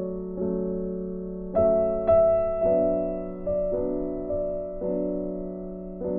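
Slow, soft instrumental piano music, its notes struck one after another about once a second and left to ring out.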